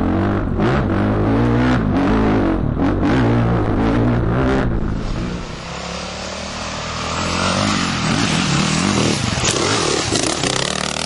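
Husaberg FE450e's single-cylinder four-stroke engine being ridden, its pitch rising and falling as the throttle is worked. About five seconds in it drops back, then builds again with a rushing noise.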